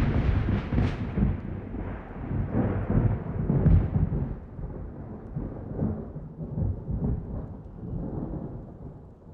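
Thunder rumbling and rolling: it starts loud, with sharper cracks about a second in and near four seconds, then gradually dies away.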